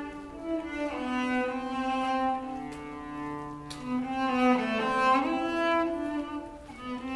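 Cello played with the bow: slow, held notes that change every second or two, at times two notes sounding together.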